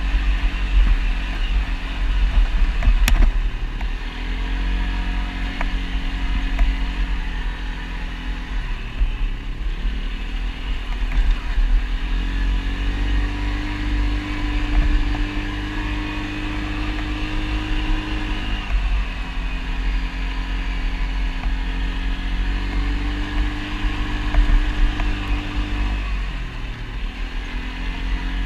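ATV engine running while riding, holding a steady pitch and then dropping and climbing back several times as the throttle eases and opens again. There is a heavy low rumble underneath and one sharp click about three seconds in.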